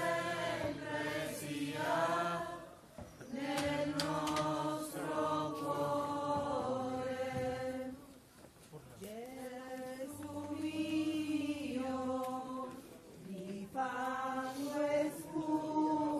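A group of voices chanting a slow devotional Passion hymn in long, held phrases, with short breaks between phrases about every four or five seconds.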